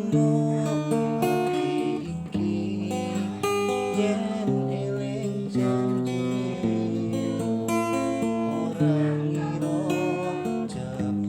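Acoustic guitar music, with notes plucked and strummed in a steady flow of changing chords.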